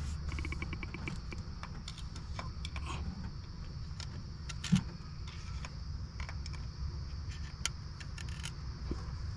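Ratchet clicking in a quick even run just after the start, then scattered metallic clinks and knocks of hand tools and parts over a steady low rumble.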